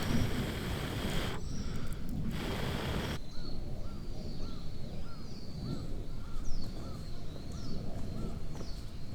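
Outdoor ambience. For about three seconds there is a loud, even rush of noise that cuts off abruptly. Then a regular series of short animal calls follows, about two a second, with higher falling chirps over them.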